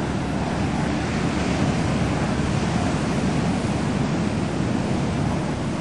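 Ocean surf breaking on a rocky shoreline: a steady, continuous rush of waves with no single crash standing out.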